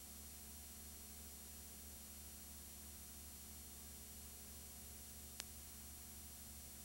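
Near silence: a steady low hum and hiss with no race sound, with one sharp click about five and a half seconds in.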